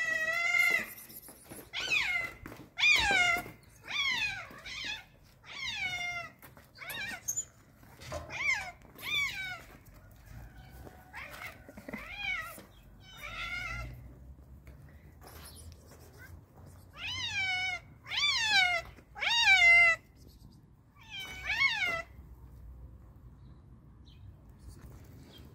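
Hungry stray cat meowing loudly and insistently for food, about one meow a second, most calls falling in pitch; the meowing stops a few seconds before the end.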